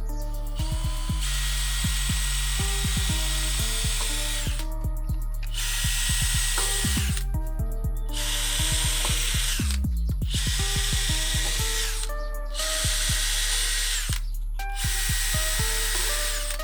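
Power tool running in repeated bursts of a couple of seconds each, starting and stopping about six times, over background music with plucked notes and a steady bass line.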